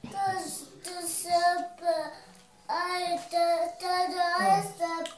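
A young child singing a short tune in three phrases of long, steady notes.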